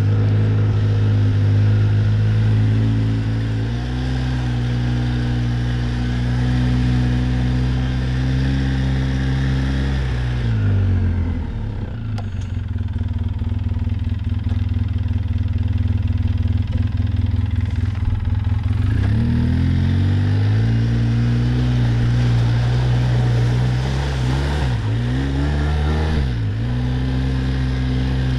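Quad bike (ATV) engine running under way at steady throttle, then the revs fall about ten seconds in and it runs low and rough for several seconds before picking up again. Near the end the throttle eases off and back on a couple of times.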